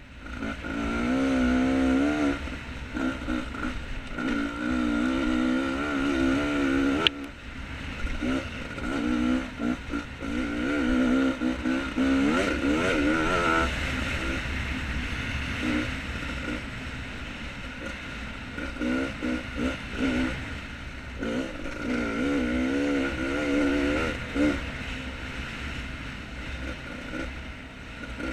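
Beta 250 RR two-stroke dirt bike engine running under constantly changing throttle, its pitch rising and falling as the rider opens and closes the throttle over and over. A single sharp click sounds about a quarter of the way through.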